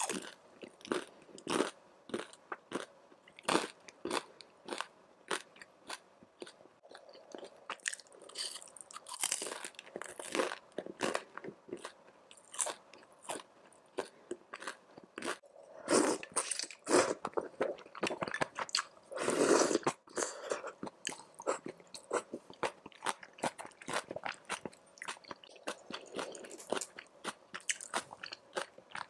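Crunching and chewing of crispy fried food close to a clip-on microphone: a dense run of short crisp crunches, with a louder run of bites about two-thirds through.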